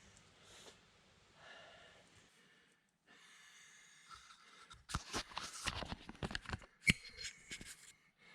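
A quick run of hand-work clicks, knocks and rattles, with one sharp clack about seven seconds in. Before it there are a few seconds of faint background noise that cut off abruptly about three seconds in.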